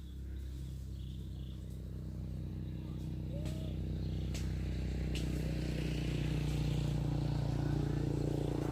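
A small engine running steadily, growing gradually louder.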